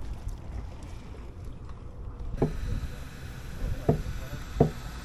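Low steady rumble of a drifting party boat with wind on the microphone, and a few brief sharp sounds in the second half.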